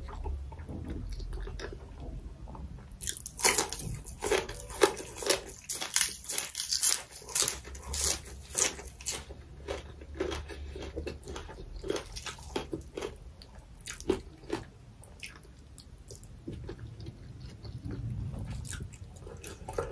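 Close-miked mouth chewing a mouthful of mutton, rice and leafy greens. Crisp, wet crunching bites start about three seconds in, come thick and fast for several seconds, then thin out to occasional crunches.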